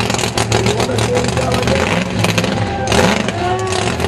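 '57 Chevrolet drag car's V8 engine running loud at high revs through a smoky burnout, its rapid firing steady over the noise of the spinning rear tyres.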